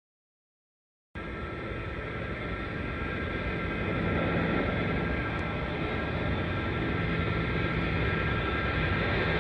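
Steady engine noise of a vehicle, with a few held whining tones over it, that comes in suddenly about a second in and slowly grows louder.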